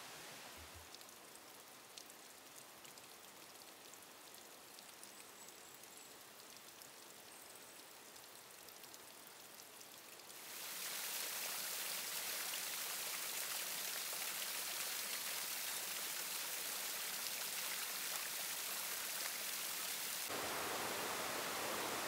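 A faint outdoor background with a few faint high chirps. About halfway in, it cuts abruptly to the loud, steady hiss of thin streams of water pouring and splashing down a moss-covered rock face. Near the end it changes to the fuller, deeper rush of a waterfall and a cascading mountain stream.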